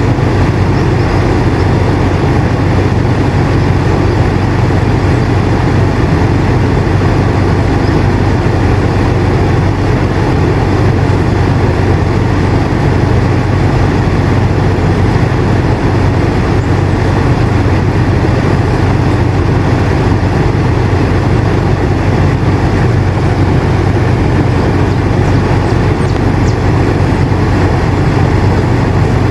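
Air conditioner running steadily: a constant low hum and rush of air, strongest in the low end.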